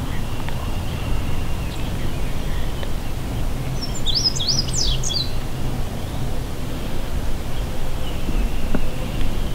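A small songbird sings one short, quick phrase of high, up-and-down notes about four seconds in, over a steady low outdoor rumble.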